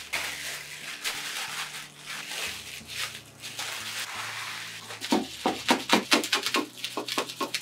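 Plastic wrap crinkling as hands fold and press it around a sandwich. From about five seconds in, it gives way to a knife sawing through the wrapped bread in quick, sharp strokes, about five a second.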